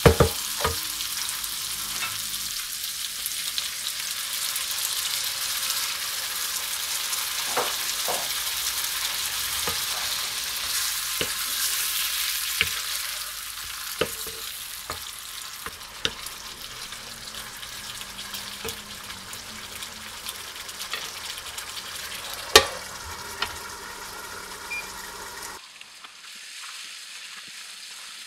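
Chicken pieces sizzling in masala in a frying pan, stirred with a wooden spatula that taps and scrapes the pan now and then. Near the end the sizzle drops abruptly to a softer, muffled simmer under a glass lid.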